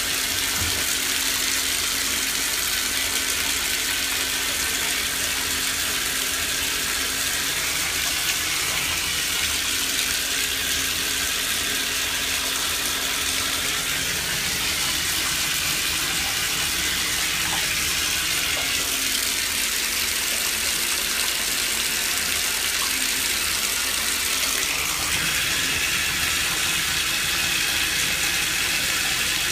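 Bathtub tap running, a steady rush of water into the tub that turns a little brighter near the end.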